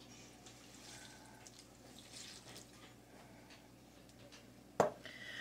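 Beef stock poured from a plastic cup into a stainless steel pot of ground beef, with faint splashing and dripping. There is a single sharp tap near the end.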